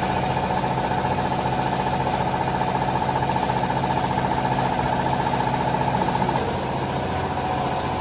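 Vertical hydraulic baler's power unit, an electric motor driving the hydraulic pump, running with a steady hum. It eases slightly about six seconds in.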